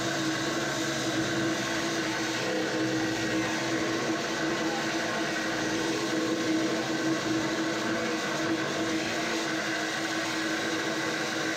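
Angle grinder running steadily under load, grinding the 10 mm steel of a boat's engine beds: a continuous motor whine over a hiss, with no pauses.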